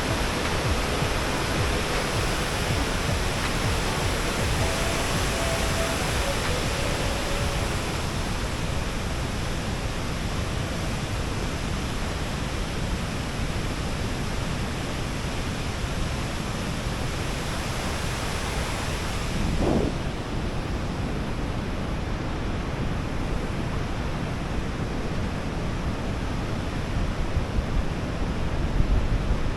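Rushing waterfall: a steady, dense noise across all pitches. A short pitched sound rises and falls about two-thirds of the way through, just as the highest hiss drops away.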